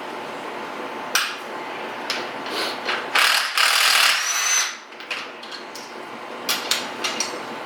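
Tool work on the top nut of a Nissan 350Z's old shock absorber, with the shaft held in place: ratcheting mechanical clicks, a longer noisy burst in the middle, and a few sharp clicks near the end.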